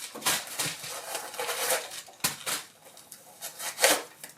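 Packing stuffing rustling in irregular bursts as it is pulled out of a small leather handbag, with a sharp click a little past halfway and the loudest rustle near the end.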